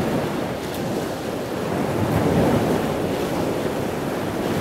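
Steady rush of water like ocean surf, swelling a little in the middle.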